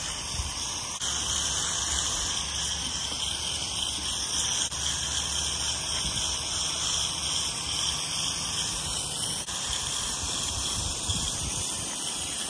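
Garden-hose sprayer throwing a fine mist of liquid lawn fertilizer over the grass: a steady hiss of spray.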